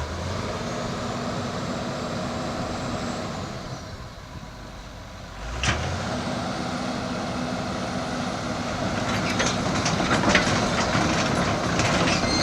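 Caterpillar 315BL excavator's diesel engine throttling up and working under hydraulic load. It dips about four seconds in and picks up again with a sharp clank. From about nine seconds on, a run of metal clanks and creaks joins it.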